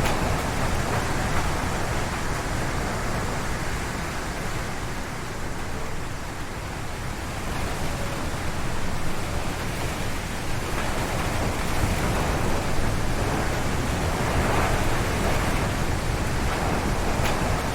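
Strong wind gusting through a forest and its swaying trees, a loud steady rush with heavy low rumble that eases slightly a few seconds in and swells again after about ten seconds.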